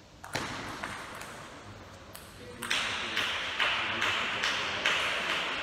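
Table tennis ball clicking off the bats and table in a short rally, about one click every half second. From about halfway a louder steady hiss sets in, with evenly spaced clicks running on through it.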